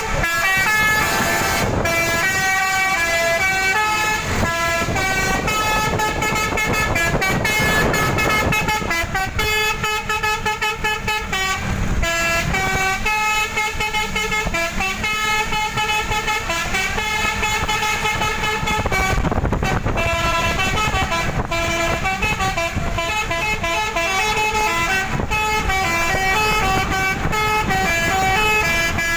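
Bus's Basuri telolet multi-tone horn played continuously, a melody of held notes stepping from pitch to pitch in repeating phrases, with a couple of brief breaks.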